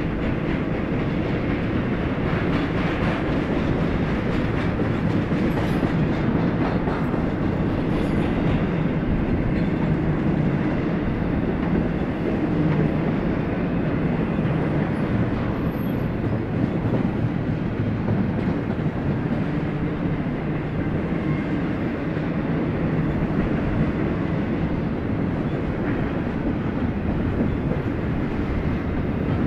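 Double-stack intermodal freight train's well cars rolling past: a steady rumble of steel wheels on rail, with a few faint clicks.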